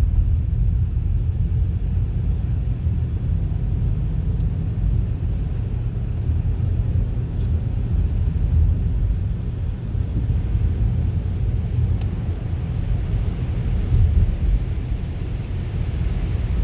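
Steady low rumble of a car driving: engine and road noise with no sudden events.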